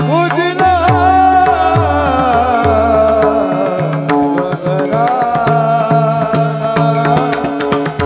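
Marathi Varkari kirtan devotional music: a sustained, gliding melody over repeated deep pakhawaj drum strokes.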